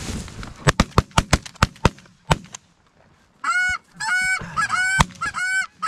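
A quick volley of about nine shotgun shots in the first two seconds, then a short lull. From about three and a half seconds in comes a run of repeated goose calls, a pitched call about every half second.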